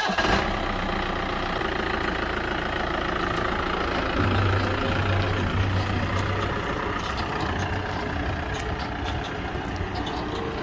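A Mahindra Bolero Maxitruck Plus pickup's engine running as the truck drives off along a paved lane.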